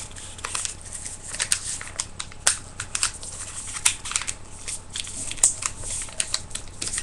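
A sheet of paper being folded and creased by hand, with the corners pressed down to a point: irregular rustling and sharp paper crackles as fingers press the folds flat.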